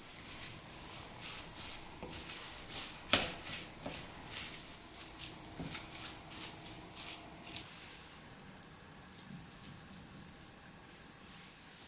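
Wooden spatula stirring shredded cabbage into a mashed boiled-egg and mayonnaise filling in a glass bowl: quick, soft, wet scraping and squishing strokes, with one sharper knock about three seconds in. The sound drops off after about eight seconds.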